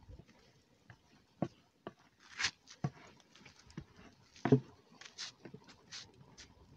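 Pots and pans being set and shifted over a wood-ash fire: scattered light knocks and clicks, a louder knock about four and a half seconds in, and a few short scrapes in the ash.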